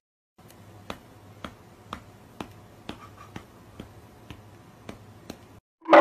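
Faint, evenly spaced sharp clicks, about two a second, over a low hum, starting about half a second in. Loud music with drums cuts in right at the end.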